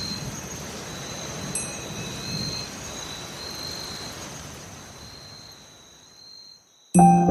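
Background audio of steady rain-like hiss with high, sustained chiming tones and a few brief chimes, fading away over the last seconds; a music track starts suddenly just before the end.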